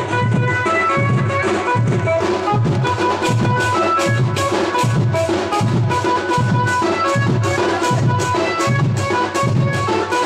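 Dhemsa dance music from a local band party: a steady drum beat with a melody line of held notes over it.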